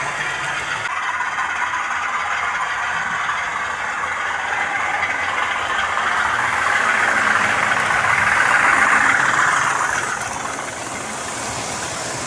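Hornby Class 50 model locomotive's TTS sound decoder playing a diesel engine sound through the model's small speaker, mixed with the model's running noise on the track. The sound swells louder about six seconds in and eases off after about ten seconds.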